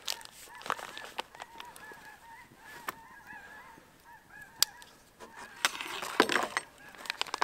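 Geese honking over and over, many short calls overlapping, with sharp crackles from a wood campfire. A louder burst of rustling comes near the end.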